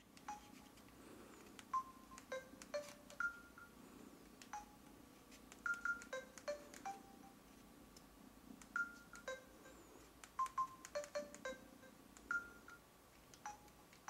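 Faint mobile phone keypad beeps: a couple of dozen short single-pitch tones at varying pitches, each with a small click of the key, pressed at an uneven pace.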